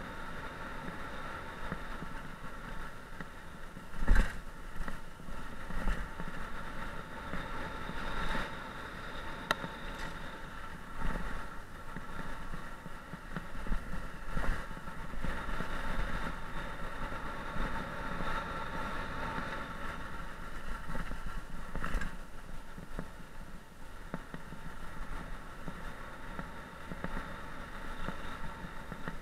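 Mountain bike ridden fast down a dirt forest trail, heard from a helmet-mounted camera: a rushing noise with rattles and knocks as it hits bumps, the loudest jolt about four seconds in, over a steady high hum.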